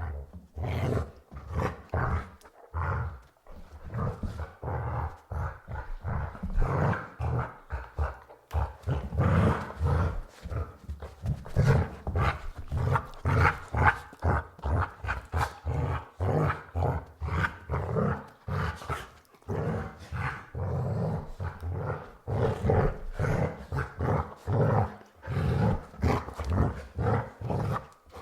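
Border Collie growling and barking in rapid, repeated bursts, several a second.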